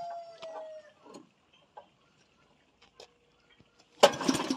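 A few light clicks, then one quick pull on a small petrol engine's recoil starter, rasping for about half a second without the engine catching. A steady high tone fades out in the first second.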